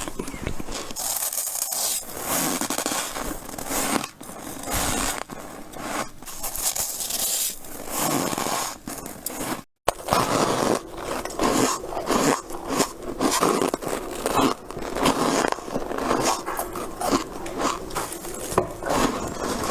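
Freezer frost being bitten and chewed close to the microphone: a dense run of squeaky crunches, broken by a brief gap of silence about ten seconds in.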